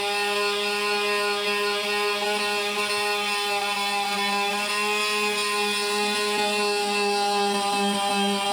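Electric power sander running steadily against wood: a constant motor hum with a whine of overtones that barely changes in pitch.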